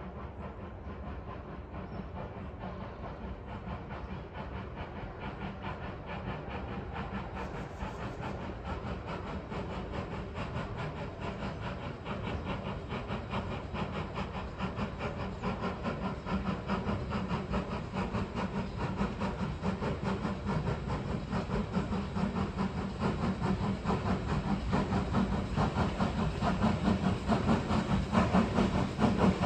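Baldwin 0-6-0 steam switcher locomotive running with steam hissing, growing steadily louder as it approaches.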